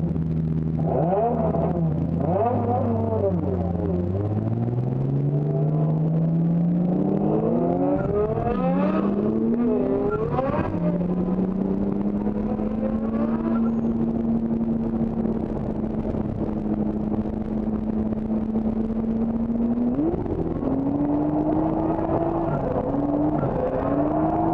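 Drift car engine, one its owner says was misfiring all over the place. It starts low and steady, climbs in revs over a few seconds with some gliding pitches, then holds steady high revs. About twenty seconds in the pitch jumps up, and the revs waver near the end.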